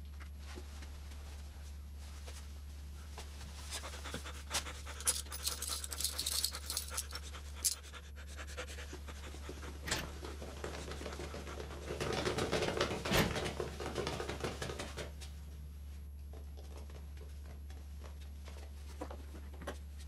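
A person panting heavily and unevenly, loudest about twelve to fifteen seconds in, with rustling and shuffling of movement over a steady low hum.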